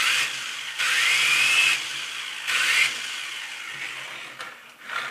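Small electric motors of a toy radio-controlled helicopter whining in short bursts as the throttle is pulsed, about four times. Each burst rises in pitch as the rotors spin up.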